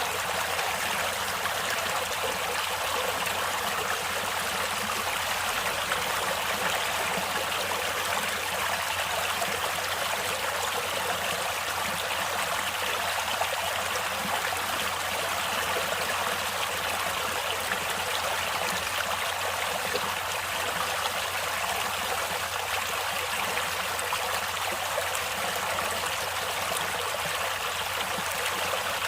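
Stream water flowing steadily over rocks, an even rushing and trickling without a break.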